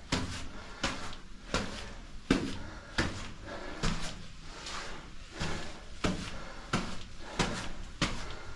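Footsteps of a hiker walking along a trail, a steady pace of about two steps a second.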